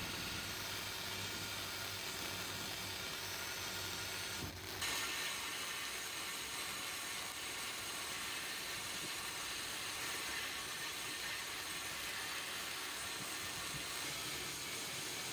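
Sandblasting gun blasting abrasive at small metal parts: a steady hiss of air and grit stripping paint and rust to bare metal. The hiss changes slightly at a cut about four and a half seconds in.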